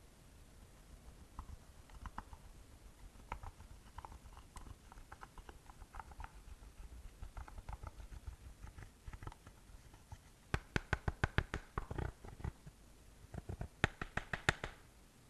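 Slime being worked by hand, squishing with scattered small sticky clicks and pops, then two runs of rapid, louder popping clicks in the last few seconds as air pockets in the slime are squeezed.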